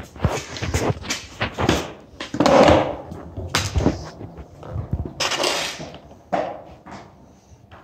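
Skateboard wheels rolling over a concrete floor, with irregular clacks and knocks of the boards as two skaters ride and try tricks.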